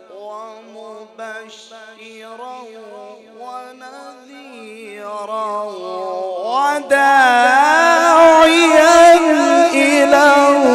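A male Quran reciter's voice chanting in a melodic, sung style, drawing out long held notes with rippling ornaments. It is subdued at first, then rises much louder and higher in pitch from about seven seconds in.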